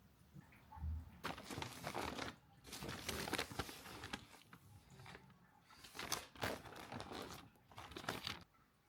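McDonald's takeout packaging being torn open and crinkled in several bursts.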